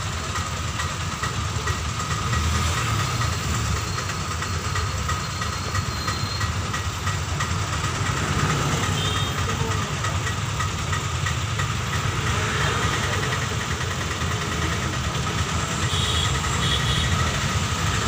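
Road traffic: a steady low engine rumble with a faint steady whine above it.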